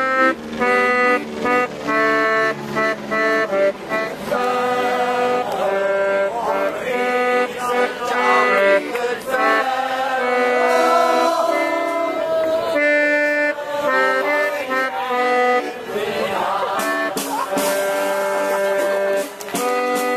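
Piano accordion playing a lively tune, short detached chords at first and longer held notes in the middle.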